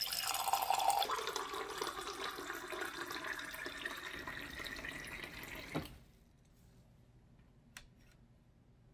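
Water stream from an LG PuriCare water purifier's spout pouring into a glass, rising slightly in pitch as the glass fills. The flow stops abruptly about six seconds in.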